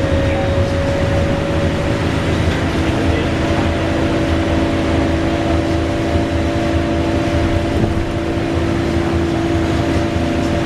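VDL DB300 double-decker bus (Wright Gemini 2 body) running, with a loud whirring whine over the rumble of the engine and road noise. About two seconds in, a higher whine fades and a lower whine takes over, rising slightly in pitch.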